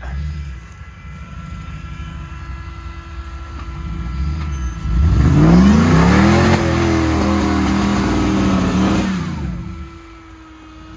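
Lifted Toyota 4Runner's engine revving hard as it climbs a steep sand ramp. It runs low at first, rises in pitch about five seconds in, holds high for about three seconds, then drops back off near the end.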